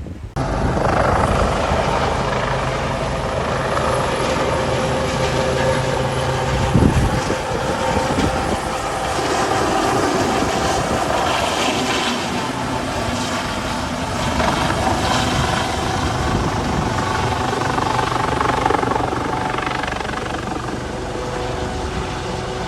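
Helicopter running steadily, its engine and rotor giving a dense, constant noise with a low hum, and a brief louder thump about seven seconds in.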